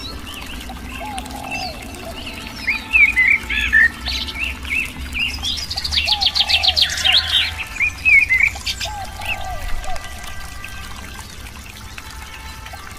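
Several songbirds chirping and calling, with a fast trill about six seconds in and a lower short call repeated every couple of seconds, over a steady low background of running water.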